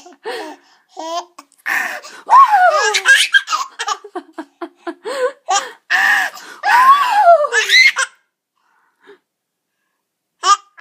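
Six-month-old baby laughing in repeated high-pitched belly laughs, the pitch rising and falling within each burst; the laughter breaks off about eight seconds in and starts again just at the end.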